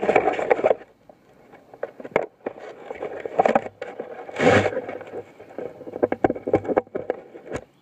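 Irregular scraping, rustling and clicking of a climbing rope and gear as a tree climber ascends the rope. The handling noise comes in uneven bursts, loudest at the start and about halfway through.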